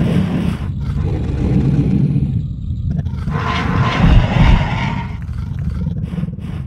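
Synthesized dinosaur roar of Google's AR 3D Ankylosaurus: long, low growls, the second rising louder about three seconds in and then easing off.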